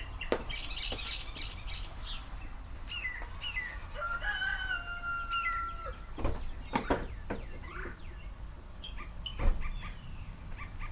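A rooster crows once, a long call held for about two seconds from about four seconds in, while small birds chirp and trill. A few sharp thumps come near the middle and toward the end.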